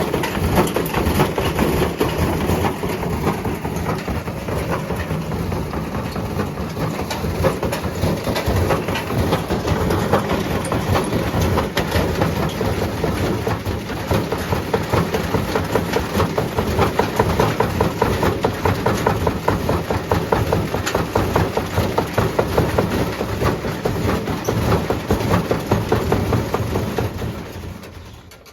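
Servis washing machine spinning with about 18 kg of blocks wedged into dust sheets in its drum: a loud, continuous clattering rumble of rapid knocks as the loaded drum goes around inside its casing, dying away near the end.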